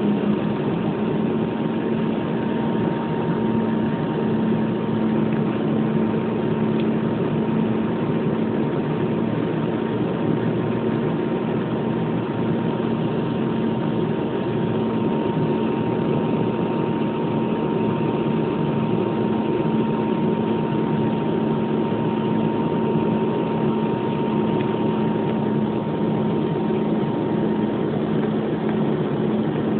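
Steady aircraft engine drone heard inside the cabin in flight: an unchanging low hum over a broad rushing noise, with a thin higher whine that fades out near the end.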